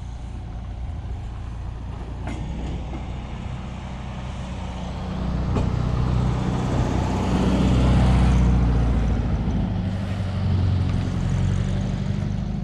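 A large engine drones steadily, growing louder from about five seconds in to a peak near eight seconds, then easing a little.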